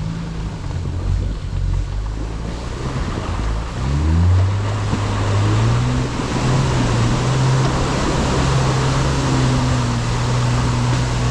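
Off-road 4x4 engine pulling through deep mud: it revs up about four seconds in, then holds steady under load, with a steady rush of muddy water spraying and splashing from the tyres.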